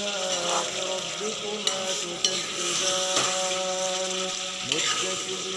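Chicken curry sizzling in a steel kadai while a perforated metal spoon stirs and turns it, with a couple of sharp scrapes and clicks of metal on the pan about two seconds in.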